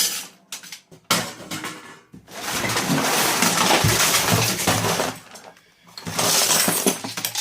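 Old screws and small scrap metal poured into an empty microwave oven's metal casing: a loose metallic rattling clatter. A few light clicks come first, then one long pour about two seconds in and a shorter one near the end.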